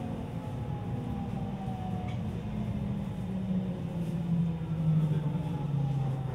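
JR West 207 series electric train's VVVF inverter and traction motors whining in several tones that fall steadily in pitch as the train slows, under the rumble of the running car, heard from inside the carriage.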